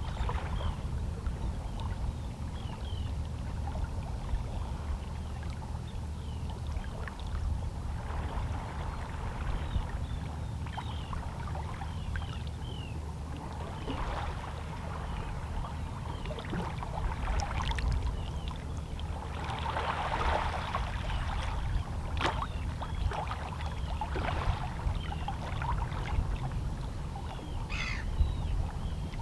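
Small, lazy sea waves lapping against shoreline rocks: irregular gentle splashes and trickles over a steady low rumble of the sea.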